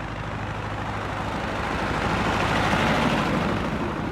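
Vehicle engine running steadily on the road, with rushing road and wind noise that swells to a peak about three seconds in and then eases.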